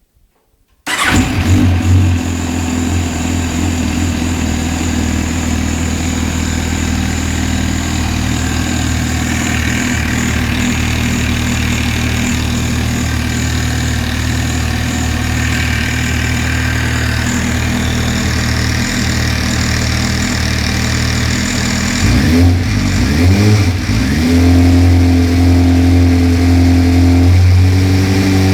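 MV Agusta F4 312 RR 1078's inline four-cylinder engine, breathing through an RG3 exhaust, starts about a second in and runs at a steady idle. Near the end the throttle is blipped twice in quick rises and falls, and the engine then settles at a higher, louder idle.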